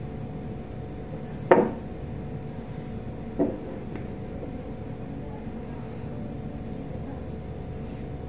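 Two sharp knocks of a plastic juice-concentrate bottle being handled on a tabletop as its cap is worked, the first about a second and a half in and the louder, the second about two seconds later, over a steady low hum.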